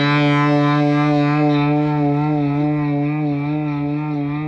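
Intro music: a distorted electric guitar holding one long note with a slight vibrato.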